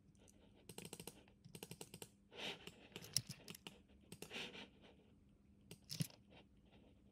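Quiet clusters of computer keyboard taps and mouse clicks, several quick strokes at a time, with short gaps between the clusters.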